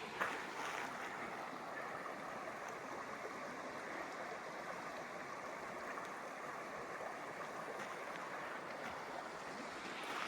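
A creek flowing: a steady rush of running water.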